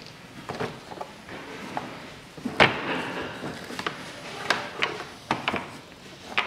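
Hard plastic knocking and clicking as a Peugeot 407's air filter housing lid is pressed and fitted back into place. There is one loud knock about two and a half seconds in, and a run of sharper clicks near the end.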